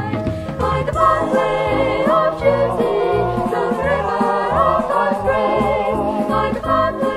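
A vocal group singing a religious song in harmony over instrumental accompaniment with a steady, pulsing bass line.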